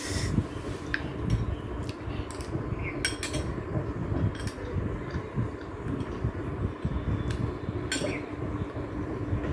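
A fork or spoon clinking on a plate a few times at uneven intervals while eating, over a steady low rumble and hum.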